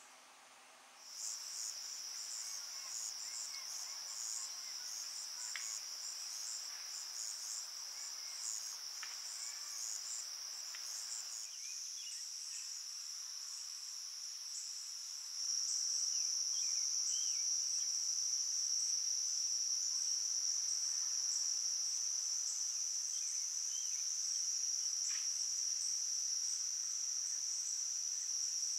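Chorus of insects giving a steady, high-pitched trill. It starts about a second in and gets louder about halfway through, with faint pulsing chirps above it early on.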